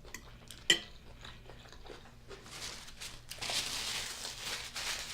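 Close-miked chewing of a mouthful of beef liver and rice: wet mouth sounds that grow denser from about halfway in, after a single sharp click near the start.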